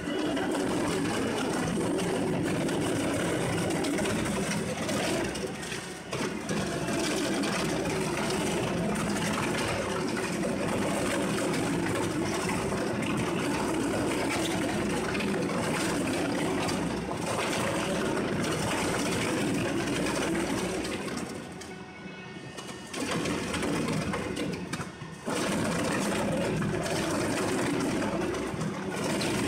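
ZEDA-PN5000 industrial document shredder running, its rotary cutters tearing through paper and plastic-wrapped bundles with steady heavy grinding. The level dips briefly about six seconds in and again for a few seconds past the twenty-second mark.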